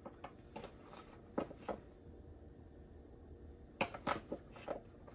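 A metal spoon scraping and tapping in a plastic bowl as kidney bean filling is scooped out: a few light clicks in the first two seconds, then a quicker run of them near the end.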